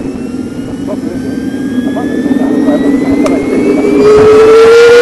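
Model jet's small turbine engine spooling up on start: a whine that rises slowly in pitch and grows steadily louder, with a stronger tone coming in about four seconds in.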